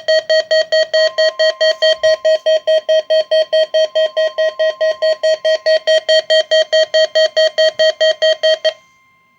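Weather radio receiver alarm activated by a NOAA Weather Radio Required Weekly Test, beeping rapidly and loudly at about five beeps a second, then stopping near the end. Underneath is a faint steady tone, the broadcast's 1050 Hz warning alarm tone.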